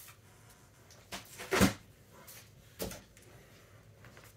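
Objects being handled and moved: a few short knocks and scuffs, the loudest about a second and a half in, another near three seconds in, and a sharp one at the very end.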